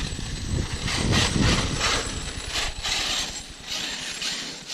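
Traxxas X-Maxx electric RC monster truck being driven hard on HPI Hostile tyres: a rumbling whir from its drivetrain, with tyres scrabbling and hissing over the ground in uneven spurts. It is quieter toward the end.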